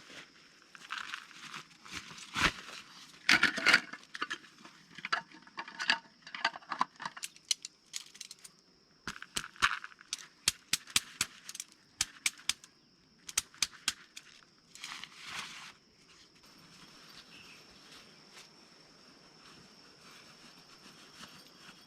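Irregular rustling and a run of sharp clicks and taps, as of things being handled or brushed through, busiest in the first three quarters and quieter near the end. A steady high thin whine runs underneath throughout.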